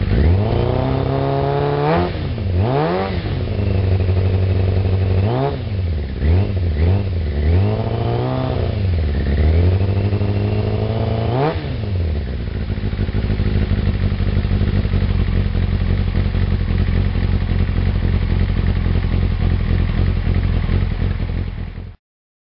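Kawasaki ZZR 600 inline-four through a Leo Vince SBK aftermarket exhaust, blipped in about six short revs that rise and drop back, then idling steadily. The sound cuts off suddenly near the end.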